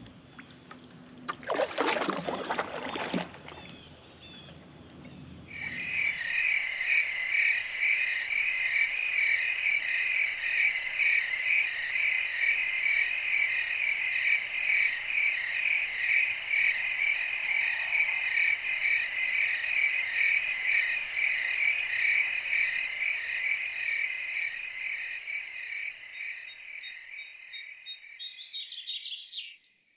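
Dense night chorus of small calling animals, a high, steady pulsing about three times a second. It starts suddenly about five seconds in and fades near the end.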